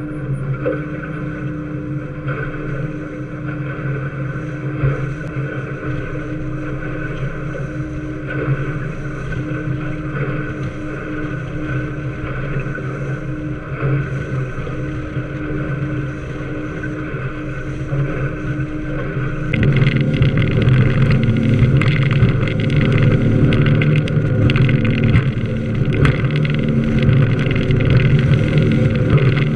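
Aluminium workboat's engines running steadily under way, mixed with wind and water noise. About twenty seconds in the engine note gets clearly louder and heavier as the boat picks up speed, throwing spray.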